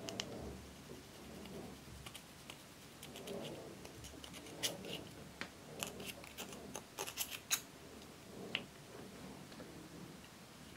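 Small scissors digging pressed eyeshadow out of its plastic compact pan: soft scraping and crumbling, with a scattered run of sharp clicks of metal on plastic through the middle.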